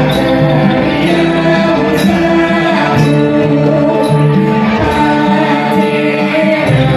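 Live Isan folk music: a khaen bamboo mouth organ sounding steady held chords, with amplified singing over it and a light high tap about once a second.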